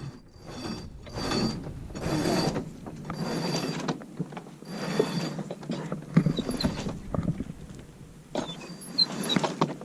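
A yacht's sheet winch being worked to haul in a line, ratcheting in repeated strokes about a second apart.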